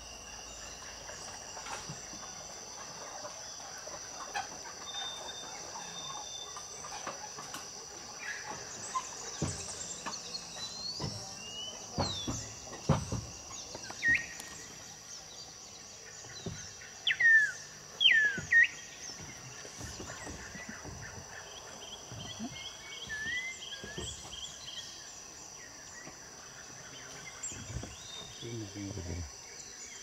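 Tropical rainforest chorus: a steady high insect buzz under several loud, sweeping whistled bird calls, strongest as close pairs of notes about halfway through, followed later by a fast trill.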